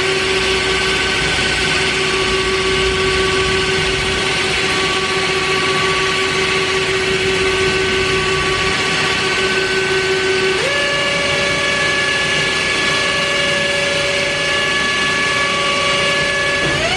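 Spindle of a Mazak Variaxis 630-5X five-axis machining center running with a steady whine over a hiss. The whine jumps up in pitch twice, about ten and a half seconds in and again near the end, as the spindle steps up to higher speeds.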